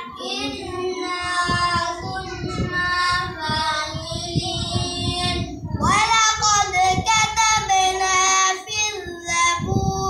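A boy reciting the Quran aloud in melodic qira'at chant, long held notes gliding up and down. A short breath a little before the middle, then a louder new phrase begins.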